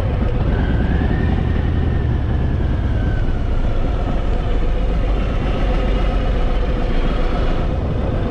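Harley-Davidson Fat Boy's V-twin engine running steadily on the move, its pitch drifting slightly up and down.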